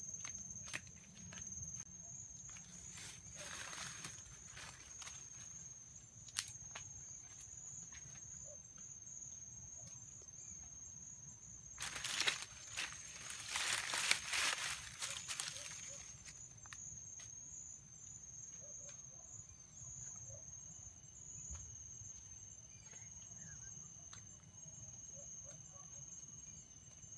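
Steady high-pitched insect drone in woodland, with two spells of rustling, around three to five seconds in and again at twelve to sixteen seconds.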